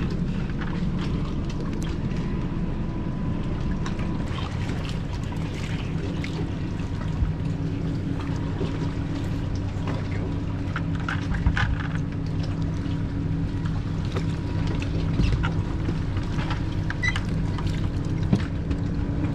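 Pontoon boat's outboard motor idling steadily, with scattered short clicks and knocks from handling bait and tackle on the deck.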